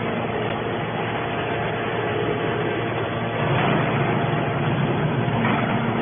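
Hydraulic scrap metal baler running: a steady, noisy mechanical drone from its hydraulic power unit, a little louder from about three and a half seconds in.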